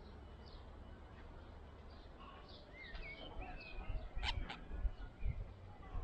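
Budgerigar chirping and warbling: a run of short high chirps, then wavering, gliding chatter through the middle. Two sharp clicks come a little past halfway, with low rumbling on the microphone in the second half.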